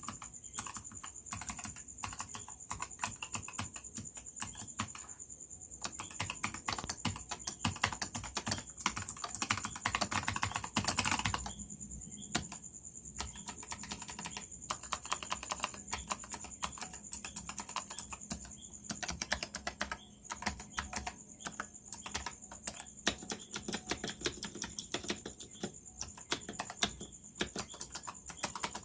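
Typing on a keyboard with Razer Purple clicky opto-mechanical switches: a continuous, irregular stream of sharp key clicks, with a denser, faster flurry around ten seconds in.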